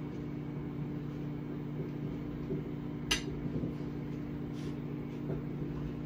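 Microwave oven running with a steady, even hum. A single sharp click comes about three seconds in, with a few softer knocks around it.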